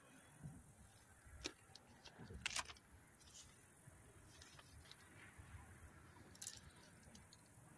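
Hands handling fishing tackle while baiting a hook with a mealworm: a few faint, scattered clicks and light rattles over a quiet background.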